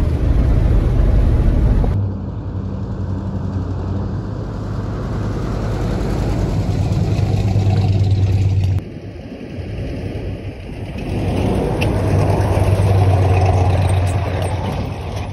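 A 1973 Chevy K20 pickup's engine running as the truck drives, heard first from inside the cab and then from outside, where it grows louder about twelve seconds in.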